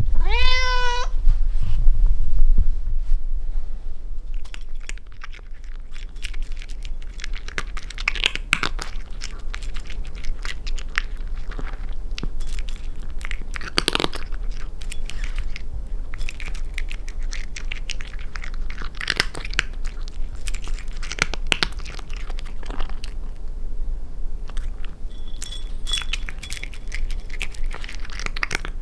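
A kitten meows once in the first second, then scattered soft clicks and rustles follow over a steady low hum.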